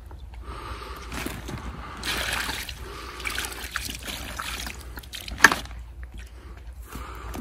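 Water poured from a plastic tub over a carp lying on an unhooking mat, splashing and trickling onto the fish and the mat. There is one sharp knock a little over five seconds in.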